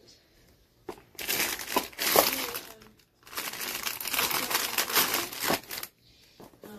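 Clear plastic packaging crinkling as the bagged hardware of a TV wall-mount kit is handled, in two stretches of about two seconds each, starting about a second in with a brief break halfway.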